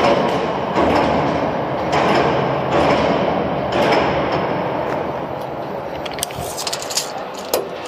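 Overhead crane running while it holds a suspended PVC profile haul-off unit: a continuous mechanical noise that swells several times in the first four seconds and eases toward the end, with a few light clicks near the end.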